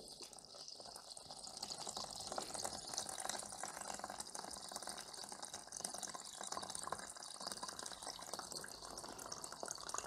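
Water running and trickling out of a loosened radiator valve union, building up over the first two seconds and then running steadily, as the pressure in the full central-heating system is let go.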